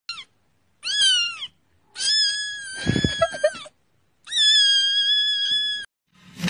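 A kitten meowing four times in a high voice: a very short call, then one that rises and falls, then two long, fairly level meows. A few low knocks sound under the third meow.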